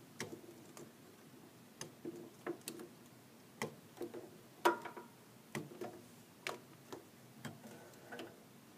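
Ribbon cable connectors being pulled off the pin headers of an LED display's hub card: a dozen or so small plastic clicks and knocks at irregular intervals, the loudest a little past halfway.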